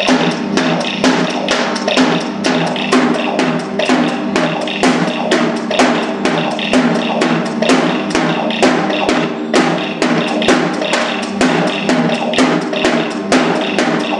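Live band music: a steady beat of drum hits, about three a second, over a sustained pitched drone.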